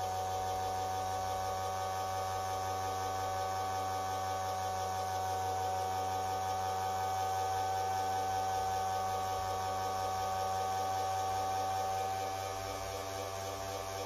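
Electric motor running steadily, spinning a magnet-fitted wooden disc beside a copper piece to heat it by magnetic induction. It makes a steady hum with a strong whine and goes slightly quieter near the end.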